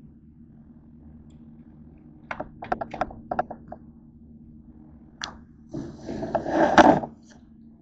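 Handling noises: a quick run of sharp clicks and taps, then after a pause a short rustling scrape that ends in a sharp knock.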